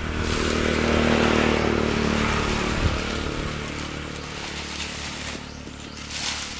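A motorbike engine running steadily, loudest about a second in and then a little quieter.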